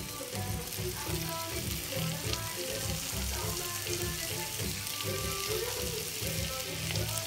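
Chopped tomatoes frying in hot oil in a wok, a steady sizzle, over background music with a low, pulsing beat.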